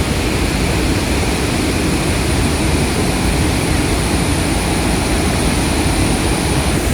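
Steady loud roar of Athirapally Falls in heavy flow: a dense, even rush of falling water.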